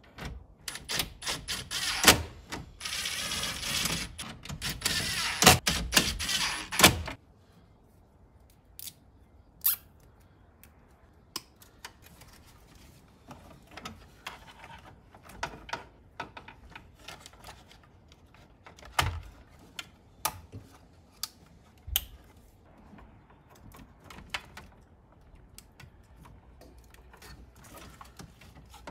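Ridgid 18V cordless driver running in short bursts and then a longer run, driving the dash kit's screws that mount the radio, over the first seven seconds. After that come scattered plastic clicks and knocks as wiring and the dash trim are handled.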